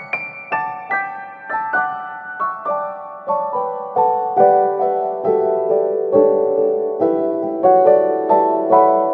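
Background piano music: a gentle melody of single notes struck about two to three a second, each ringing and fading.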